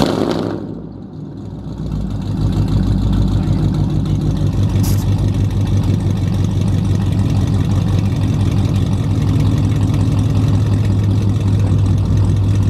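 Chevrolet Camaro V8 with newly fitted long-tube headers firing up: a sharp flare right at the start, then, from about two seconds in, a steady, deep, throaty idle.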